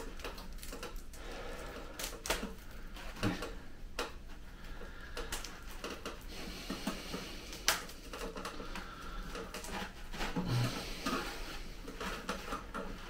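Irregular clicks, knocks and scraping from working a saw and hands into a solid, root-bound mass of conifer roots. There is no steady sawing rhythm, a sharp click about two thirds of the way in, and a low thump shortly after.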